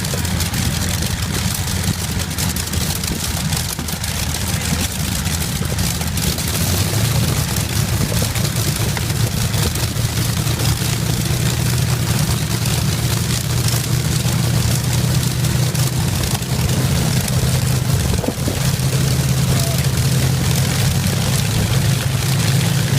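Rolls-Royce Merlin V12 aero engine running steadily: a loud, deep, continuous drone that grows a little stronger about seven seconds in.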